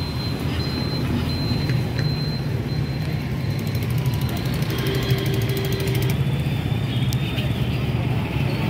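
Street traffic noise: a steady low engine rumble from vehicles on the road.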